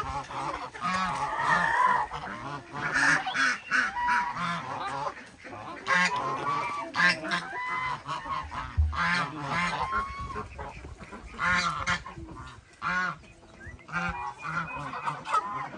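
Several geese honking over and over, their calls overlapping.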